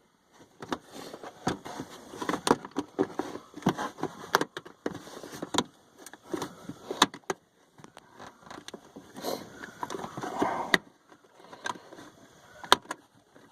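Hands handling intake parts and working a small rubber plug into place: irregular clicks, knocks and rubbing, some sharp, in no steady rhythm.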